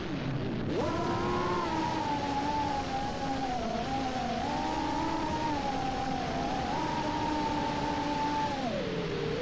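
3-inch FPV quadcopter's motors and props whining as a stack of tones that follow the throttle. The pitch dips sharply at the start, climbs back within about a second, holds with small wobbles, then drops again near the end.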